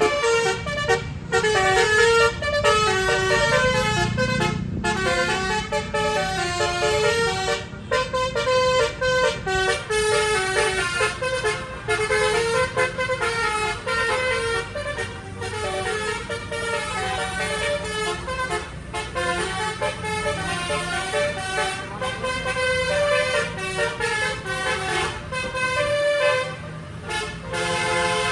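Indonesian 'telolet' bus horn: a set of tuned air horns playing a quick stepping melody of short notes, over and over, with the bus engine running underneath.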